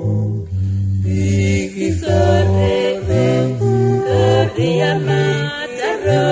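A vocal group singing a church song in harmony, holding long chords over a low bass line, with short sliding ornaments in the upper voice near the middle and end.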